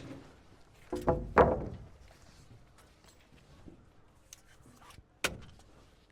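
A wooden 2x6 board being handled and knocked against framing: two heavy knocks with a short ring about a second in, then a single sharp click near the end.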